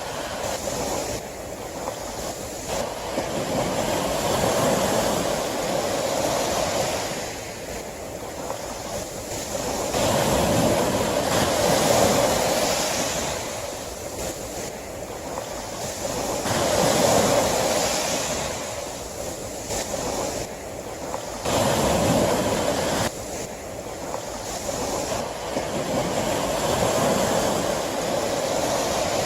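Sea waves breaking on a shore: the surf swells and eases in a steady rhythm, building to a peak roughly every five or six seconds.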